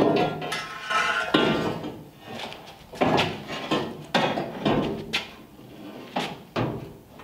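Metal clanking and knocking, a clatter at first and then several separate sharp knocks with short ringing tails, as freshly welded steel exhaust tubing is handled and fitted under the car.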